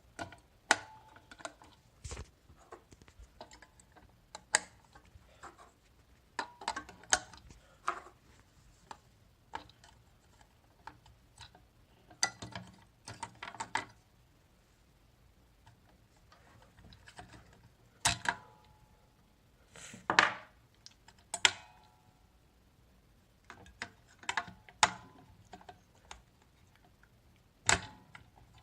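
Scattered clicks, taps and knocks of small plastic and metal parts being handled while batteries are fitted into an electronic safe, with a few louder knocks past the middle.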